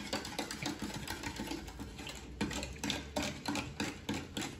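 A spoon stirring in a glass of water, clinking against the glass in quick, even strokes, about four a second, while table salt is mixed in to dissolve.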